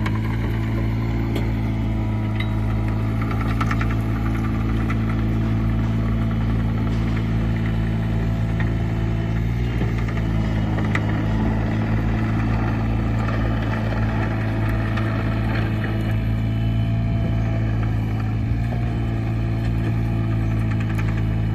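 Komatsu PC20R-8 mini excavator's diesel engine running at a steady speed during a burn test, with a few faint ticks over the engine sound.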